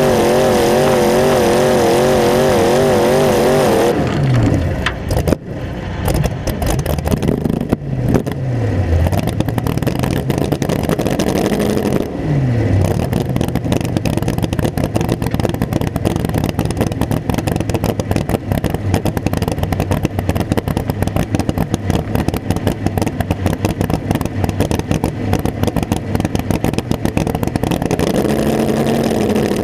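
Modified mini tractor-pull machine's engine at full throttle with a wavering pitch, then backing off about four seconds in. It is blipped up twice, settles into a steady, loud idle, and is revved briefly near the end.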